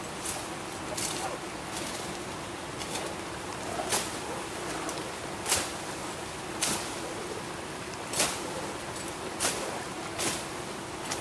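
A series of sharp knocks or chops, about one every second or so, over a steady background hiss.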